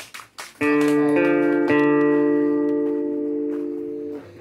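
Acoustic guitar: three strummed chords about half a second apart, the last one left to ring out and slowly fade for a couple of seconds.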